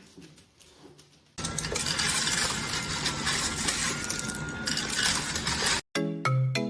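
A sudden loud clatter of clinking and rattling hard objects starts about a second and a half in, runs for about four seconds and cuts off abruptly. A short musical tune of separate notes starts near the end.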